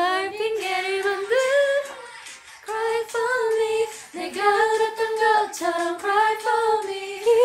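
A woman singing a cappella, with no instruments, in held melodic phrases and short breaks about two and a half and four seconds in.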